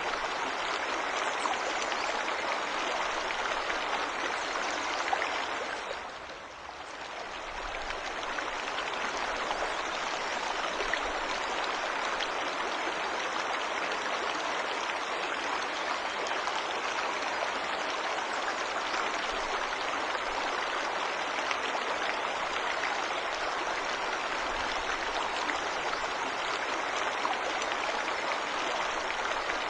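Waterfall rushing steadily, an even hiss of falling water that softens briefly about six seconds in and then returns.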